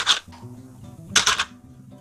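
Paper muffin liners rustling as they are pressed into a metal muffin tin, two short crinkles about a second apart, over soft background music.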